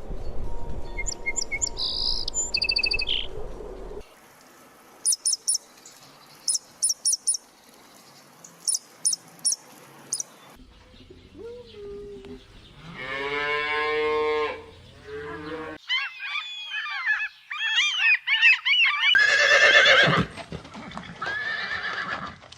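A run of animal calls, mostly birds: birdsong, then short high chirps in quick groups, a long drawn-out pitched call about halfway through, and warbling, squawking calls near the end.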